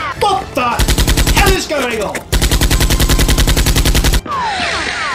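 Automatic gunfire sound effect in two rapid bursts of about ten shots a second: a short burst about a second in, then a longer one of nearly two seconds. Quick falling whistle-like sweeps come just before and after the first burst.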